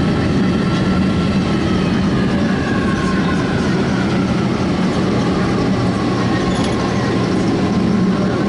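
Boeing 767-300's jet engines at taxi idle, heard inside the cabin: a steady hum with faint whines that drift slowly up and down in pitch.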